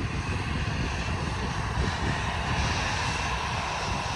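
Jet engines of a Qantas Boeing 737 running at high power as it rolls along the runway: a steady roar with a whine from the fans, the hiss growing a little stronger about halfway through.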